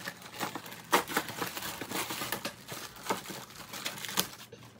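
Paper and plastic packaging crinkling and rustling as a parcel is unwrapped by hand, in a dense run of irregular crackles. The sharpest crackle comes about a second in.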